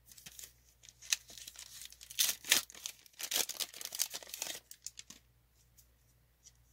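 Foil wrapper of a Pokémon trading card booster pack being torn open and crinkled, a run of crackling rips for about five seconds, loudest in the middle, as the pack is pulled apart around its cards.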